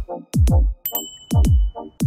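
Electronic background music: a deep kick drum thumping about twice a second, with short synth chords between the beats.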